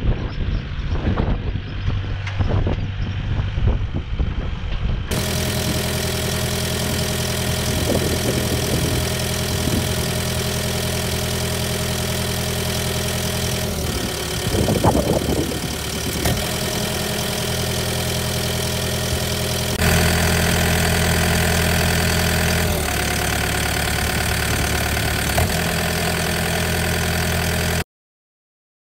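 Kubota KX080-4 excavator's diesel engine running steadily at idle, heard close up with the engine cover open; it gets a little louder about two-thirds of the way through and cuts off just before the end. It is preceded by a few seconds of the machine working, with wind on the microphone.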